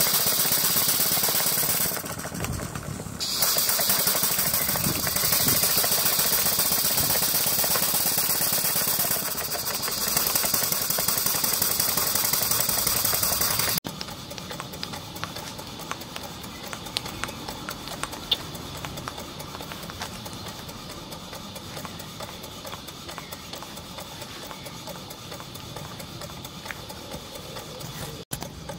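Stuart Victoria single-cylinder model steam engine running fast on live steam, with a loud steady hiss of steam that weakens briefly about two seconds in. About halfway through the sound drops abruptly to a quieter hiss with the engine's light mechanical ticks and clicks.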